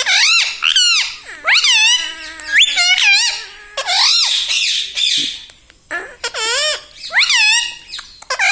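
Indian ringneck parrot calling in a rapid string of high, wavering, pitch-bending squeaks with short gaps between them.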